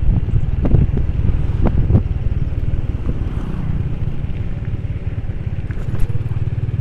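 Motorcycle engine running steadily with a low, pulsing rumble. A few short knocks come in the first two seconds.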